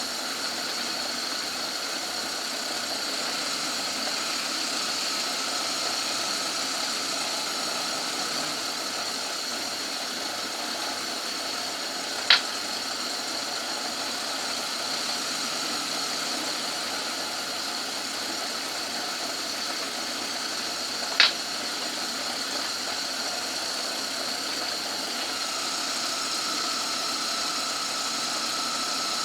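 Old Myford lathe running steadily under a light roughing cut on a bush, with a constant high-pitched whine over its running noise. Two short sharp clicks stand out, about twelve seconds in and again about nine seconds later.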